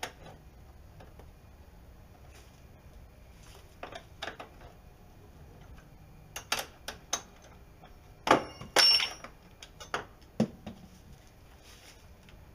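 Scattered metal clinks and knocks from working on the hinges of a Jeep Cherokee XJ's rear liftgate to take it off. Two louder metallic knocks come about two-thirds of the way in, the second with a short high ring.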